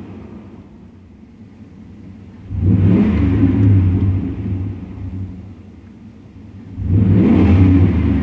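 The 5.7-litre V8 of a 1996-99 Chevrolet/GMC 1500 pickup, heard from inside the cab, accelerating hard twice. The engine note jumps up about two and a half seconds in, holds for a couple of seconds and eases off, then surges again near the end.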